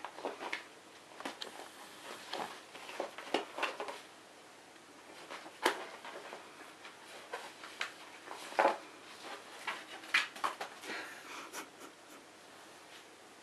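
A cat wrestling a cloth kicking toy on a wooden floor, clutching, biting and kicking at it: irregular scuffs, rustles and soft knocks in clusters with short pauses between.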